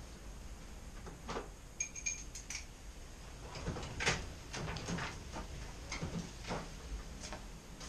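Tools and metal parts being handled and moved about: irregular knocks and light metallic clinks, with a couple of short ringing pings about two seconds in and the loudest knock about four seconds in.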